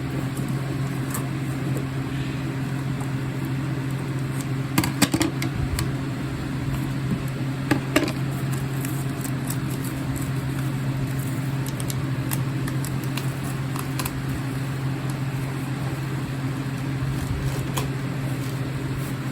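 A cardboard box being handled and its packing tape cut: scattered light clicks and scrapes, with a few sharper knocks about five and eight seconds in, over a steady low mechanical hum.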